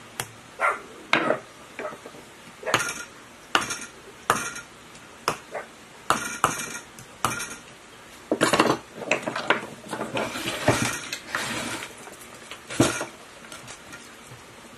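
Irregular clinks and knocks of hand tools against the metal stator housing of a three-phase pump motor being rewound, with a denser run of clatter about eight seconds in and one last sharp knock near the end.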